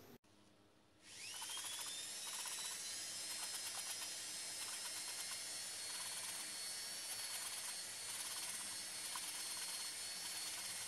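Electric drill spinning up with a short rising whine about a second in, then running steadily at speed. It is turning an engine valve against its seat in a Yanmar YM240 cylinder head to lap it with grinding compound, with a fast ticking under the whine.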